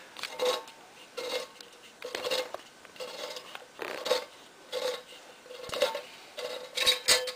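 Handheld manual can opener cutting around the rim of a tin can, its key turned in short strokes about once a second, each stroke a metallic crunch with a brief squeak.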